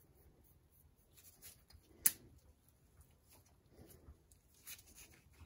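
Quiet handling noises from a Dana 60 axle shaft's U-joint and yoke being turned in gloved hands: faint scraping and rustling with a few light metal clicks, and one sharp click about two seconds in.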